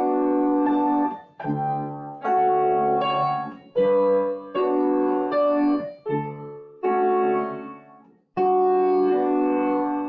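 Upright piano played slowly: a series of held chords, each ringing a second or two, with short silences between them.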